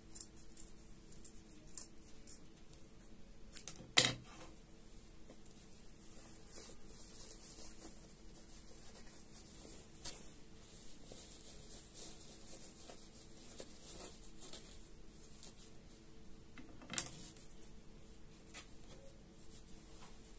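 Fabric being handled, with soft rubbing and rustling, and two sharp knocks, one about 4 s in and one near the end.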